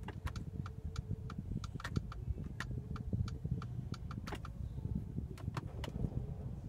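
A car's turn-signal indicator ticking steadily, about three clicks a second, over the low hum of the idling engine.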